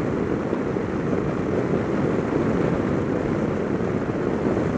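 Piaggio MP3 500 three-wheeled scooter riding along at a steady speed: even rush of wind and engine noise with no change in pitch or level.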